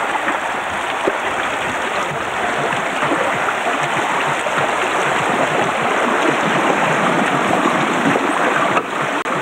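Steady rush of a shallow river flowing over a stony bed.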